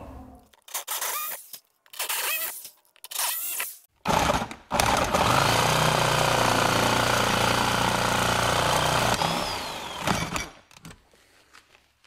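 Jigsaw cutting aluminum sheet: a few short starts, then about six seconds of steady running cut that dies away near the end.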